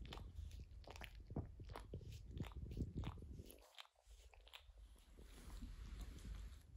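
French bulldog mouthing and licking a person's bare foot: faint, irregular mouth clicks and smacks several times a second, breaking off briefly just before four seconds in.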